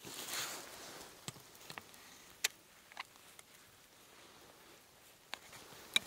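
Vortex spotting scope being fitted onto a tripod head by hand: a short rustle at the start, then a scatter of small clicks and knocks from the mount, the sharpest about two and a half seconds in and another near the end.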